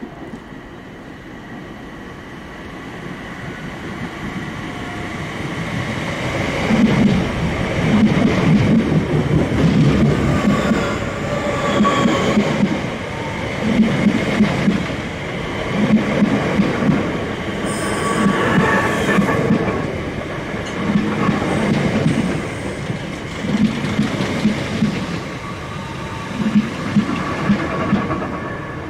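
Southeastern electric multiple-unit train passing close by along the platform, growing louder over the first several seconds. Its wheels then clatter over rail joints in regular groups, with a steady whine above.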